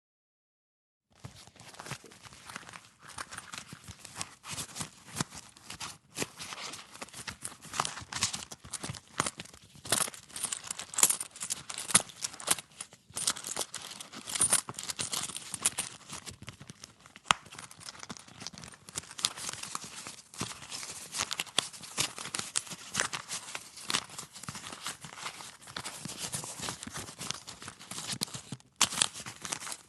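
Hands rummaging through a leather wallet: leather creaking and rustling, paper money crinkling, and coins and credit cards clicking as they are moved around and slid in and out. It starts about a second in and goes on as a busy, irregular stream of rustles and sharp clicks, pausing briefly twice.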